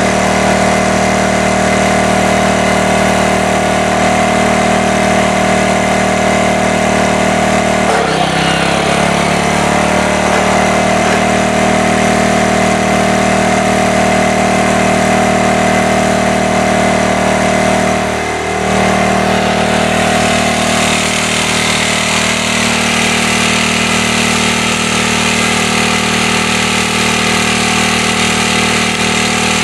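Portable generator's engine running steadily, with a short sweep down in pitch about eight seconds in and a brief dip a little past halfway.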